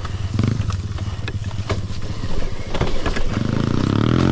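Gas dirt bike engine idling, with scattered clicks and knocks, then revving up near the end as its pitch rises.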